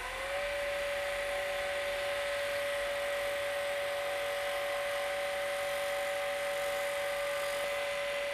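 Wood lathe running at steady speed with a steady motor whine, while the Turnmaster's carbide cutter takes a light shear cut on the spinning wooden box blank, an even hiss. The whine settles to its steady pitch right at the start.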